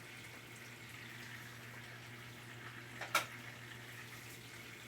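Brastemp top-loading washing machine filling its tub, with water running steadily in through the inlet under a low steady hum. A single sharp click comes about three seconds in.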